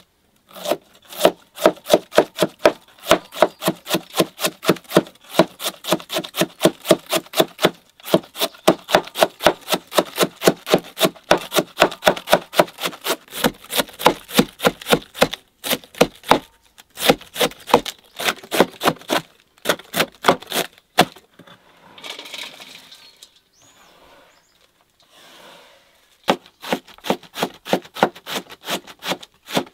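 A heavy cleaver shredding cabbage on a wooden chopping board: quick, even chops about four a second, in runs broken by short pauses. A longer break with softer, noisier sounds comes about two-thirds of the way through.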